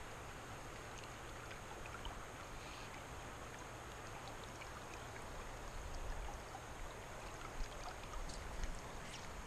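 Shallow river flowing over a gravel bed: a steady, faint rush of water with a few small ticks and splashes.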